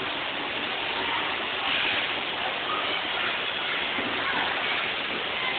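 Steady rush of heavy rain and running water.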